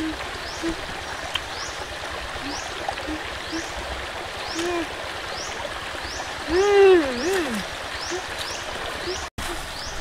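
Rocky forest stream running steadily, with a high chirp repeating about every two-thirds of a second and a few short low notes. About two-thirds of the way through, a louder short call falls in pitch, then rises and falls again.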